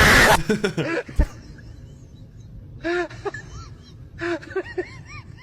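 A person's voice: a harsh noisy burst at the start, a sharp click about a second in, then two short runs of high syllables that rise and fall in pitch, about three and four and a half seconds in.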